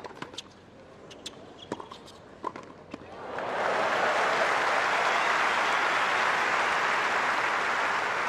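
Tennis rally: a few sharp racket-on-ball hits, roughly one every half second or so, then stadium crowd applause rising about three seconds in and holding steady and loud.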